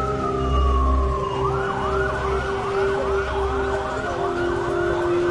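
Emergency vehicle siren: one slow falling wail, then about a second and a half in it switches to a fast up-and-down yelp, cycling about twice a second.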